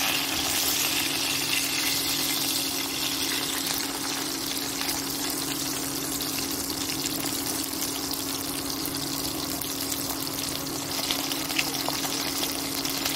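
Halwa fish (pomfret) shallow-frying in hot oil: a steady sizzle, loudest in the first few seconds just after the fish is turned, then settling. A steady low hum runs underneath.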